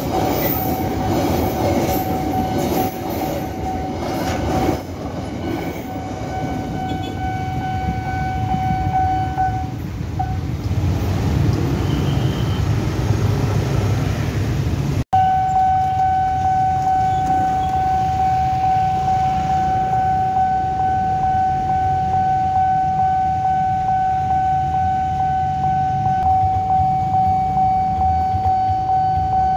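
Freight wagons of a parcel train rumble through a level crossing while the crossing's warning alarm sounds one steady tone. The alarm stops about a third of the way in, leaving the rumble of motorbike traffic. After a sudden cut near the middle, the crossing alarm sounds again, loud and steady.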